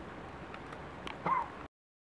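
Steady faint outdoor night hiss with a few small clicks and one short call a little over a second in, pitched high and bending down; then the sound cuts off abruptly to dead silence.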